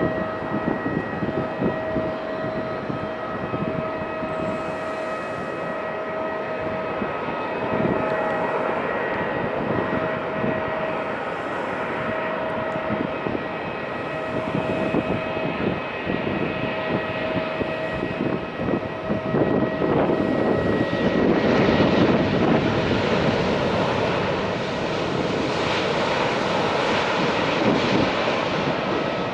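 Boeing 777-200 airliner's twin jet engines on a landing: a continuous rumble with steady whining tones, growing louder about two-thirds of the way through.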